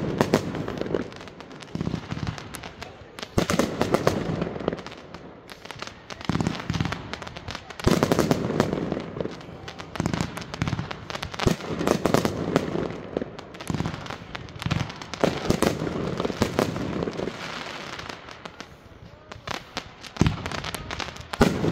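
Aerial fireworks firing in a continuous barrage: a rapid run of sharp bangs and bursts, with louder clusters every few seconds.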